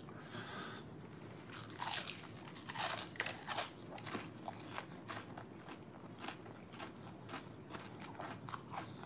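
Chewing a mouthful of crunchy tempura-battered fried chicken, with many short crisp crackles of the batter and skin, most of them about two to three and a half seconds in.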